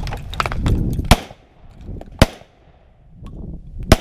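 Three shotgun shots: the first two about a second apart, the third about a second and a half later. Knocks and rustling in the first second lead up to the first shot.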